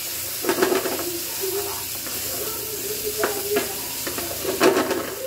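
Pork pieces sizzling in oil in a frying pan as they brown, with a spatula stirring and scraping against the pan several times.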